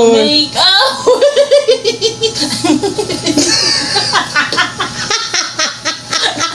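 Two women laughing hard together, in rapid bursts.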